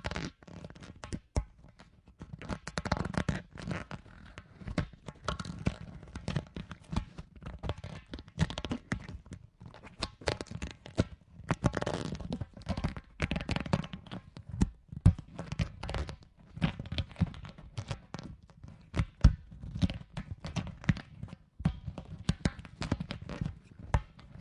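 Big rubber ball being handled and rubbed: an irregular, continuous run of crackles, rubbing and small thuds from its rubber surface, which stops near the end.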